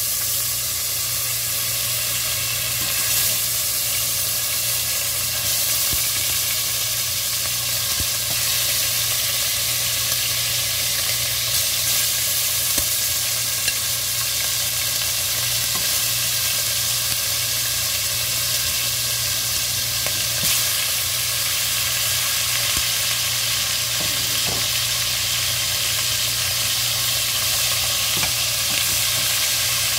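Chicken pieces sizzling as they fry in hot oil in a stainless steel pot: a steady, loud hiss with faint scattered crackles.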